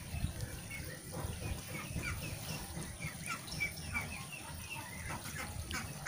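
Small birds chirping over and over, short downward-slurred notes, over a low rumble.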